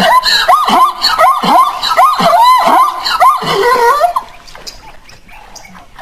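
Zebra calling: a rapid series of barking, yelping calls, two or three a second, each rising and falling in pitch, that die down after about four seconds.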